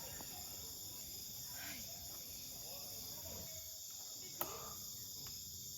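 Faint, steady chorus of insects such as crickets, with a single sharp click about four and a half seconds in.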